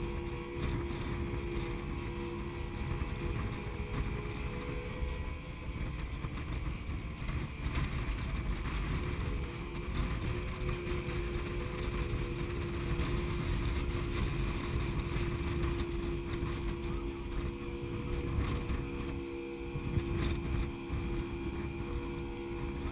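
Inboard diesel engines of a Severn-class all-weather lifeboat running steadily under way, a constant drone with a few held tones over the rumble of propeller wash and wind on the microphone.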